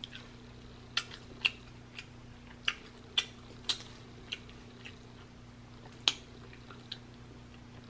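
Close-miked eating sounds of sticky, sauce-glazed beef ribs: about eight short wet smacks and clicks scattered over several seconds, over a faint steady low hum.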